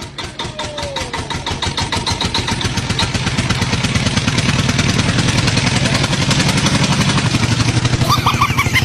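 A small engine starting up and running. Its firing pulses start slow and quicken, and it grows louder over the first three or four seconds, then runs fast and steady.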